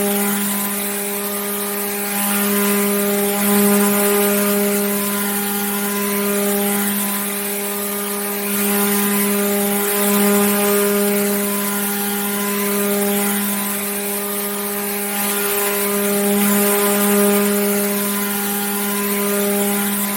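Electric water pump running steadily: a constant motor hum with a hiss over it, swelling slightly about every six seconds.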